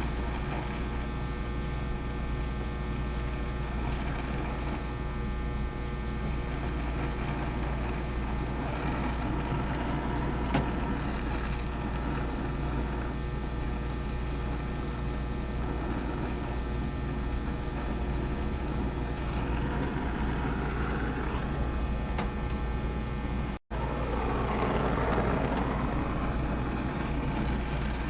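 Steady hum of running machinery, with many fixed tones and strong low rumble. The sound cuts out for an instant about three-quarters of the way through.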